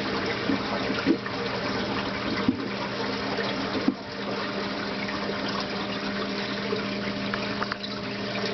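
Ecotech Vectra L1 aquarium return pump running at a low-middle speed setting, a steady hum over the rush of water. Its owner judges it much noisier than other Vectra pumps. A few short knocks sound in the first four seconds.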